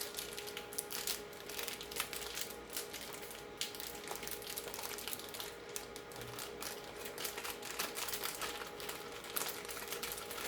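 Plastic foil blind bag of a Funko Pop Mystery Mini crinkling irregularly as it is squeezed and handled, feeling for the figure inside.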